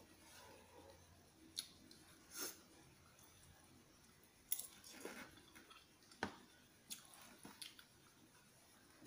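Faint, scattered clicks of a metal fork and spoon against a ceramic bowl of macaroni soup, with soft chewing between them.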